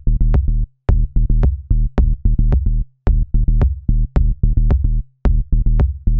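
Electronic background music with a steady beat: short, punchy bass notes and sharp clicks in quick groups, with brief gaps between them.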